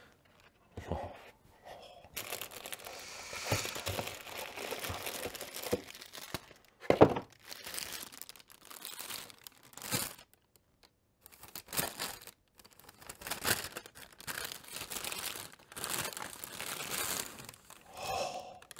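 Clear plastic bag around a camera body crinkling and rustling as it is handled and pulled off, in bouts with short pauses. A single louder knock about seven seconds in.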